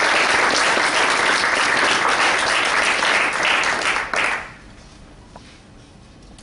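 Audience applauding: dense clapping that dies away about four and a half seconds in.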